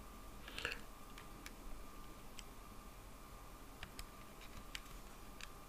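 Faint, irregular clicks of keys being pressed one at a time, about eight over a few seconds, as figures are keyed in to work out a calculation.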